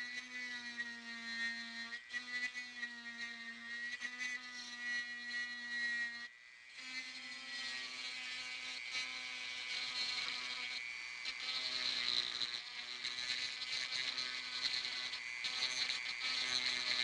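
Dremel rotary tool with a burr bit grinding out hairline cracks in a sailboat's fiberglass gelcoat: a steady high-pitched motor whine with a grinding hiss. The whine cuts out briefly about six seconds in, and the grinding grows louder in the second half.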